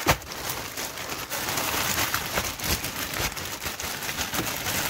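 A clear plastic bag and silver anti-static bags of electronics kits crinkling and rustling as they are handled, with a sharp crackle right at the start and many small crackles throughout.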